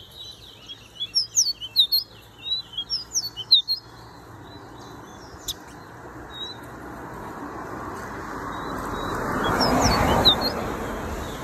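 Songbirds chirping in quick runs of short, high notes during the first few seconds and again near the end. In between, a rushing noise swells to its loudest about ten seconds in, then fades.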